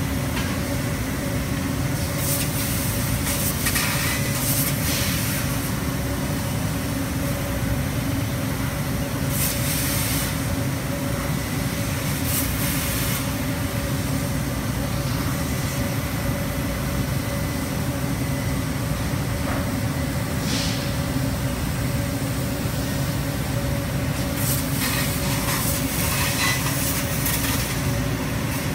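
CNC laser cutting machine running as it cuts knife blanks from metal sheet: a steady machine rumble and hum, with short hissing bursts every few seconds.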